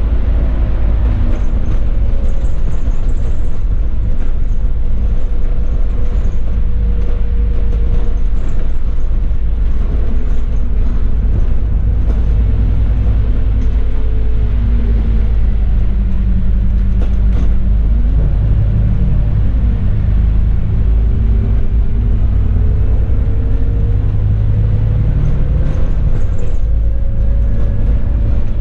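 Enviro400 MMC double-decker bus on the move, heard from the upper deck: a constant deep rumble with an engine and drivetrain whine that rises and falls in pitch several times as the bus is driven hard. A few short knocks come through the body.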